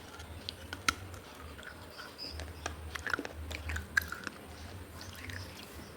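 Close-miked biting and chewing of pieces of baked clay from a clay diya lamp, with crisp crunches and sharp cracks, the loudest about a second in and again around four seconds in.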